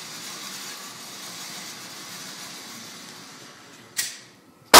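Steady hiss of range background noise. About four seconds in comes a single sharp metallic clink that rings briefly, and right at the end a sudden, very loud bang begins.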